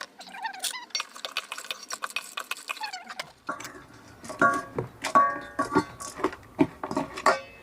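Handling of food packets and containers: dense rustling and quick clicks, then from about halfway sharper clicks with short squeaks.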